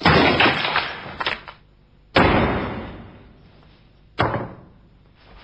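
A sledgehammer smashing a skull, a loud crash with pieces clattering as it shatters. Two more heavy crashing impacts follow, about two and four seconds in, the last one shorter.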